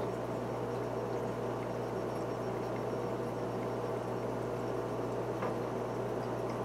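Aquarium filter running: a steady bubbling, trickling water sound over a constant low electrical hum.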